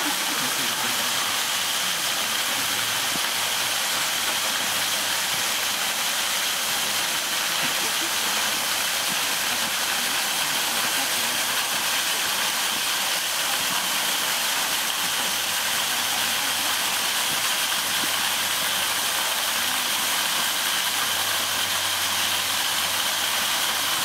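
Steady, unbroken hiss of rushing water from a mountain stream and waterfall.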